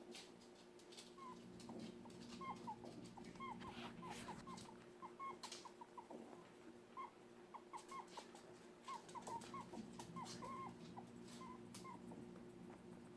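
A small pet animal squeaking faintly: many short squeaks in quick, irregular runs, the sound it makes when upset. A steady low hum and scattered small clicks run underneath.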